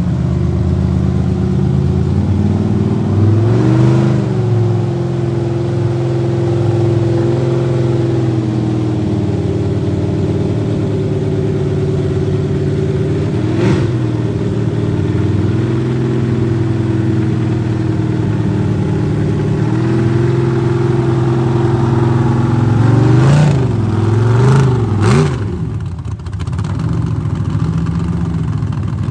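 Off-road race buggy's engine running steadily with short throttle blips: one about four seconds in, another around fourteen seconds, and a few quick revs in a row near the end.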